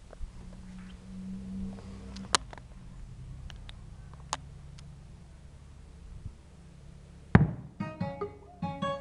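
A low steady hum with a few sharp clicks, then a loud thump about seven seconds in as music starts playing through a sound system of Milenium woofers, Powerpack drivers, a Shamsonic tweeter and a Roadstar Power One amplifier.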